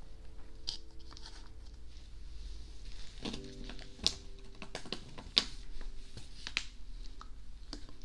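Plastic packet crinkling and rustling as it is handled, a scatter of small clicks and crackles with two sharper snaps about four and five seconds in.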